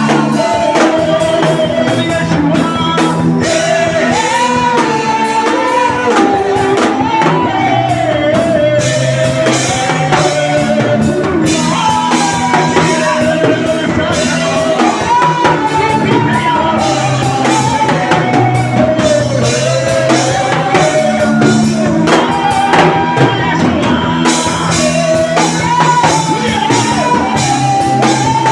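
Worship music played by a band: a steady drum beat and bass notes under a continuous melody line that bends up and down without a break.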